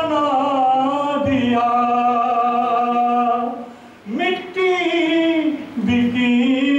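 A man singing a naat unaccompanied, holding long drawn-out notes with melismatic bends, with brief breaths about a second in, around four seconds and near six seconds.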